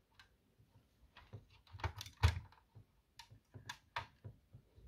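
Light clicks and taps from a 1:18 diecast model car's rear engine cover being opened by hand, as the hinged panel and body parts knock together. There are about half a dozen clicks, the loudest a little past two seconds in.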